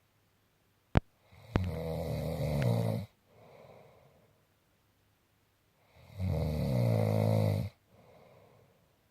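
A sleeper snoring: two long, loud snores about four seconds apart, each followed by a softer, breathy breath. A sharp click comes about a second in.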